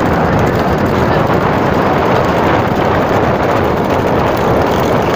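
Loud, steady rush of wind and road noise from moving at racing speed alongside horse-drawn racing carts, with no single sound standing out.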